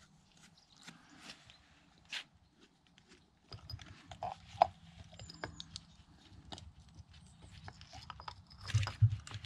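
Scattered light clicks and taps of a tractor fuel lift pump's glass sediment bowl and wire retaining clamp being handled and taken apart. A low steady hum comes in about three and a half seconds in.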